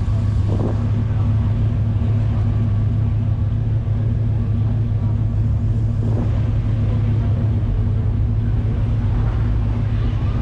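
Classic car's engine idling steadily with a low, even drone.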